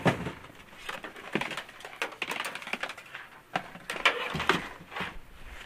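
Hand rummaging among old TVs and a plastic tote, shifting and knocking things about: an irregular run of knocks, clatters and scrapes, the loudest one right at the start.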